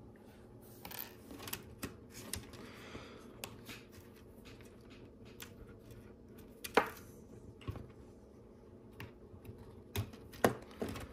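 Plastic LEGO Technic pieces clicking and rattling as they are handled, pulled and pushed into place, with one sharp snap about seven seconds in.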